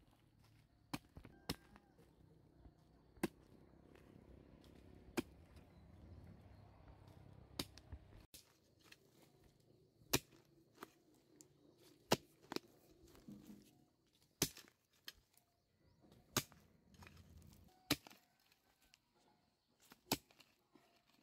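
Hoe blade chopping into dry, clumpy earth: a dozen or so sharp strikes, one every second or two, as the ground is dug over.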